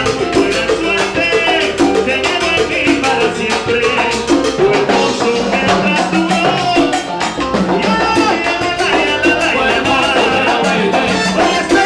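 Salsa band playing live, with a lead singer over percussion, drum kit and bass.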